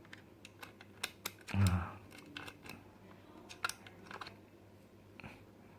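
Scattered light clicks and small taps of fingers and a screwdriver working on the opened laptop's internal parts and fittings. A short hum of voice comes about a second and a half in.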